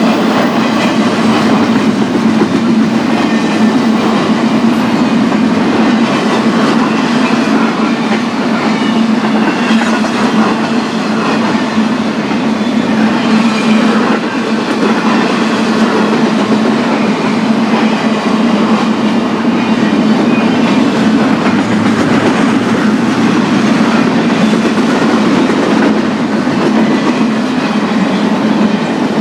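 Intermodal freight train rolling past at a steady speed, its steel wheels clacking over the rail joints under a continuous rumble.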